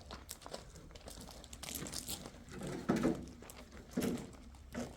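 Irregular rustling and crinkling, like things being handled, with louder thumps about three seconds and four seconds in.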